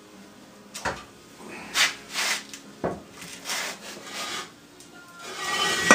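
A vintage Sipp drill press column being slid into position, with repeated short scrapes and rubs of metal on metal and a couple of knocks. A longer, louder scrape comes near the end as it settles into place.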